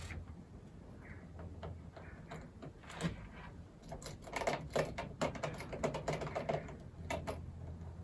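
Quick clicks and taps of a small screwdriver and screws against a laptop's plastic bottom cover, in a flurry from about three seconds in until near the end, over a low steady hum.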